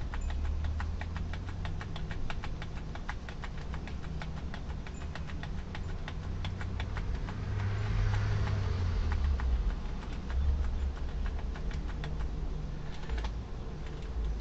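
Rapid clicking on a computer, about three or four clicks a second, thinning out after the middle, over a steady low hum.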